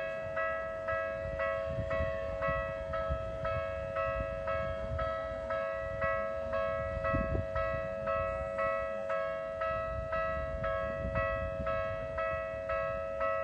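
Japanese railway level-crossing alarm ringing in a steady, rapid ding-ding, about two strokes a second, with a steady tone beneath. A train's low rumble runs under it.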